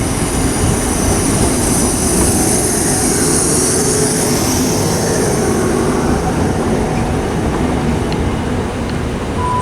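Class 455 third-rail electric multiple unit running into the platform: a steady loud rumble of wheels on rails, with a high hiss strongest in the first half.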